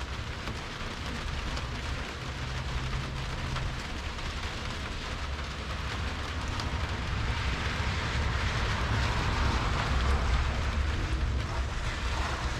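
Steady rain hiss with a vehicle engine's low rumble that grows louder through the second half, as it approaches.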